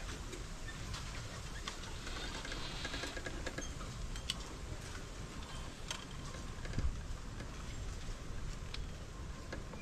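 Outdoor ambience: a steady low rumble with scattered light clicks and taps.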